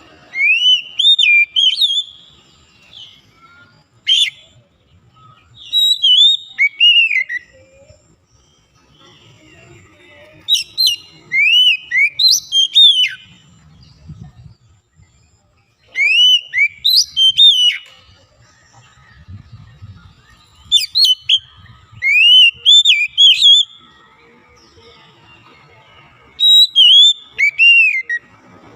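Oriental magpie-robin (kacer) singing: short phrases of clear whistled notes that slide up and down, mixed with sharp ticks. The phrases repeat about every four to five seconds, with short pauses between them.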